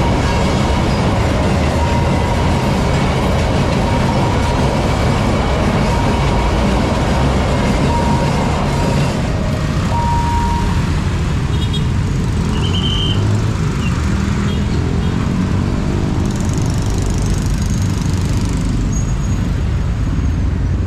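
Tail end of a ballast train rumbling past a railway level crossing, its noise easing about nine seconds in as road traffic of cars and motorcycles takes over, with a short high beep a few seconds later.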